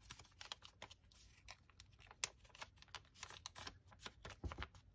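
Origami paper being folded and pressed between the fingers, giving faint, irregular crisp ticks and crackles as the creases are worked.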